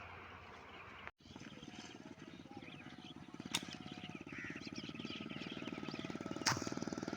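Faint outdoor ambience with small birds chirping, under a steady rapid low pulsing. Two sharp clicks stand out, about three seconds apart.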